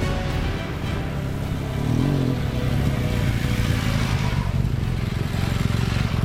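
Adventure motorcycles riding past on a gravel dirt road, their engines swelling as one passes close about four seconds in.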